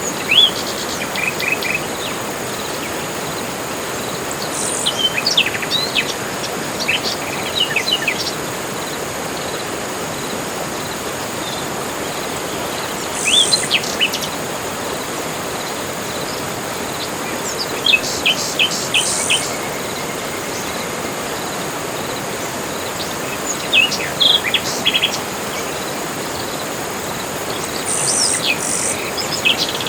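Tropical forest ambience: a steady high insect drone over a constant hiss, with bursts of bird chirps and whistles every few seconds.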